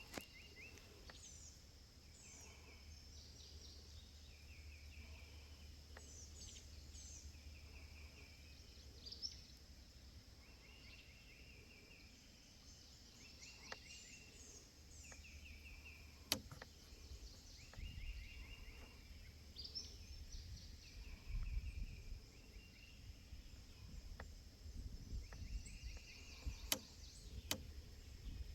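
Songbirds calling in swamp forest: a short call repeated every couple of seconds, with higher chirps between, over a faint steady high insect drone. A few sharp knocks come in the second half, over low rumbling.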